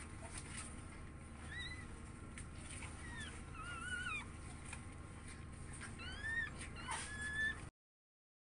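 Newborn pug puppies squeaking while they nurse: short, high squeaks that rise and fall, several in quick succession about six seconds in. The sound cuts off suddenly near the end.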